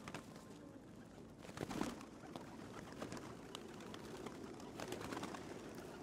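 Pigeons cooing faintly, with a short rustling burst about a second and a half in.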